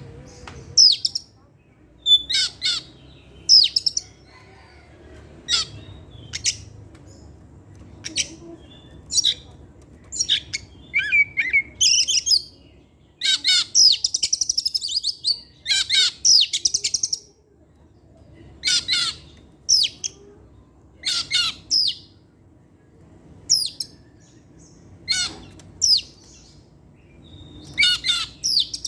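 Oriental magpie-robin (kacer) singing: short, loud, high whistled phrases about once a second, with a longer rapid trill of about four seconds halfway through.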